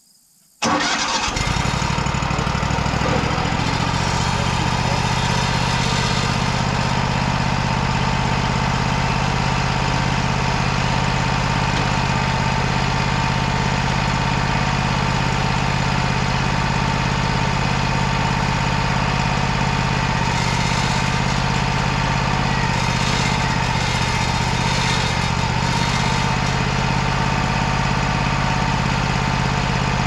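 Wood-Mizer LT35 HD sawmill engine starting about half a second in, catching at once and then running steadily, with a steady whine over it.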